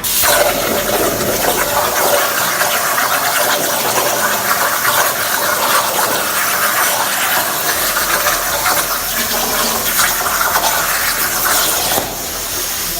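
Plasma torch of a CNC cutting table cutting steel plate: a loud, steady hiss with irregular crackle, dropping in level near the end.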